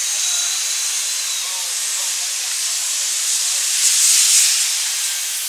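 Steady hiss of street traffic noise, heavily high-pass filtered and amplified so that its low end is cut away, with a faint muffled voice underneath. A faint thin whine runs through the first second and a half, and the hiss swells briefly about four seconds in.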